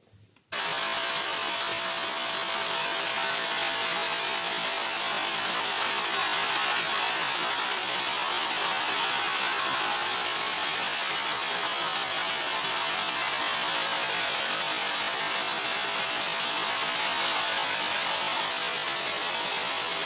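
Geepas drum vacuum cleaner running, a steady even rush of suction air with a thin high whine over it, as its floor brush is pushed across the floor. The sound comes in abruptly about half a second in.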